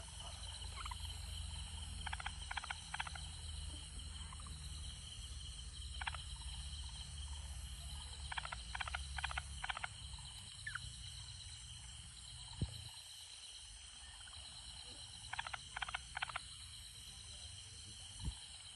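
Night chorus of insects with a steady high trill, and a frog calling in short runs of three to five quick notes, several times.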